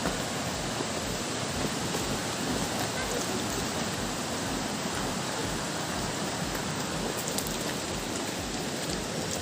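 Steady rush of falling water, the continuous roar of a monsoon waterfall mixed with rain, with a few faint ticks in the last couple of seconds.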